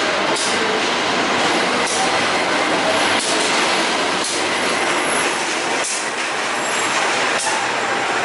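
Diesel-electric locomotive idling close by: a steady, loud mechanical hum and hiss, with faint clicks recurring every second or so.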